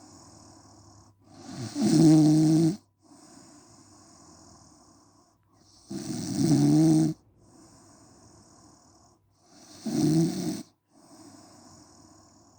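A sleeping woman snoring. There are three loud, pitched snores about four seconds apart, with a quieter hissing breath between each.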